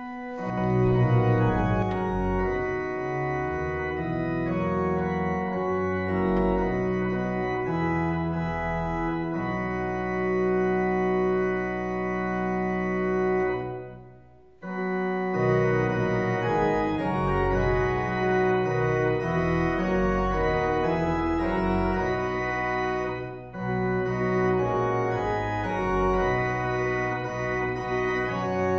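Church organ playing sustained chords in a slow hymn-like progression, with a brief break between phrases about halfway through.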